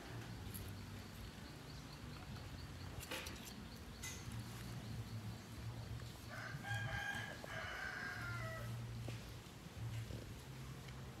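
A rooster crows once, a drawn-out, two-part crow starting about six seconds in, over a low steady hum.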